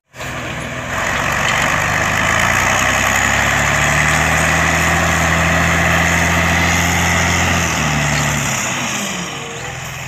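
Diesel engine of a Randon RK 430B off-highway dump truck running steadily while the hydraulic hoist tips the dump body. It gets louder about a second in and eases off near the end.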